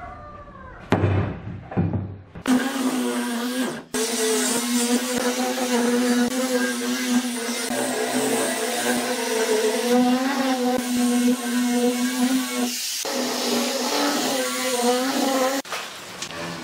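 Handheld angle grinder with a sanding disc running steadily and sanding a wooden frame, a steady motor hum with gritty abrasive noise; it breaks off briefly twice and stops about a second before the end. In the first two seconds, a few wooden knocks as the frame is set down.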